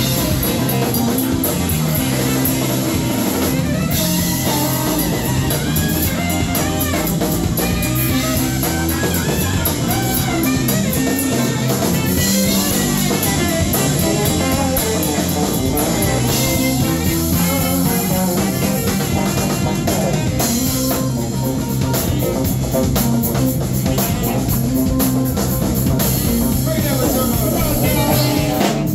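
Live band playing an instrumental rhythm-and-blues groove with no vocals: saxophone over electric guitar, a repeating bass line and a drum kit.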